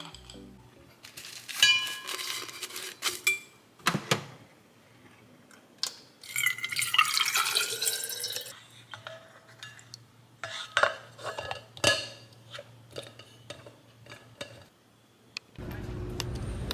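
Water poured from a plastic pitcher into a stainless-steel insulated bottle for about two seconds, its pitch shifting as the bottle fills, between clinks of glassware and a few handling knocks and clicks. Near the end, a steady outdoor rush of wind and traffic takes over.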